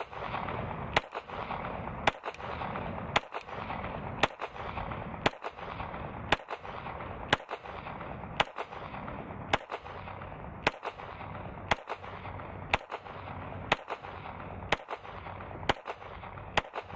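Glock 17 9mm pistol firing 125-grain reloaded rounds, slow single shots evenly paced about one a second, about sixteen in all. The whole magazine runs without a stoppage or misfeed.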